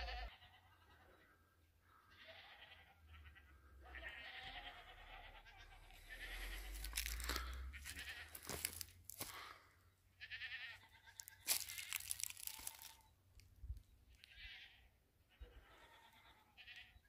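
Goats bleating, a string of short and longer calls, with crunching footsteps on stony ground in the middle of the stretch.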